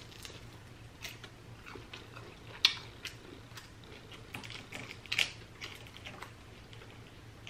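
Close-miked eating sounds: chewing and handling food, heard as scattered soft clicks and crackles, with two louder clicks, one near the middle and one about two-thirds of the way through.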